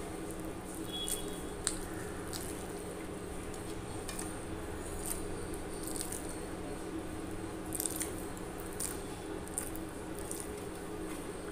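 Close-up eating sounds of a person chewing rice and curry eaten by hand: wet, squishy mouth sounds with scattered small sharp clicks, over a steady low hum.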